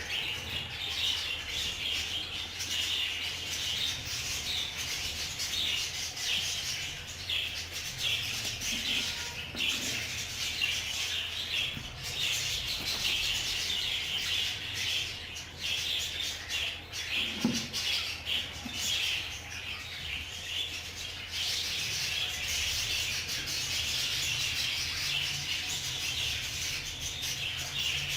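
A flock of budgerigars chattering and chirping, a continuous high twittering, over a steady low hum.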